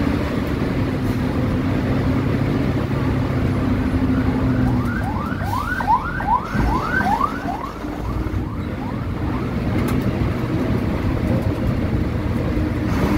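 A bus's diesel engine runs steadily, heard from inside the cabin, its drone easing a little about a third of the way in. In the middle comes a quick string of about ten short rising chirps, some three a second, like a siren-type horn, with a single knock among them.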